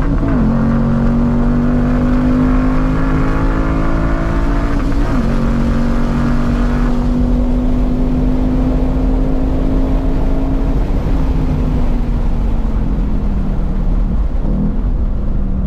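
2021 Ford Mustang Mach 1's 5.0-litre V8 at full throttle down a straight, heard from inside the cabin. Its pitch climbs steadily, with two sudden drops at upshifts in the first five seconds. After about eleven seconds the note falls away as the car slows, with a brief rise in revs near the end.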